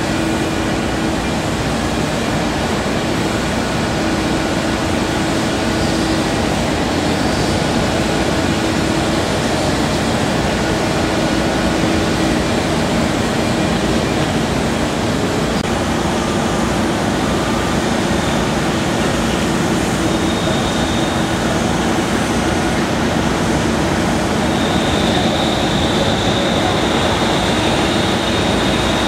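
Caterpillar 320D L excavator's C6.4 diesel engine running steadily under working load as the boom and bucket move, with a steady high whine joining over the last few seconds.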